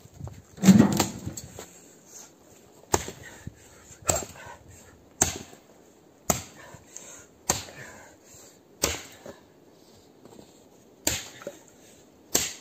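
A loud, heavy thud about a second in, then a Bellota axe chopping into a pine branch: eight sharp strikes about a second apart, with a longer pause before the last two.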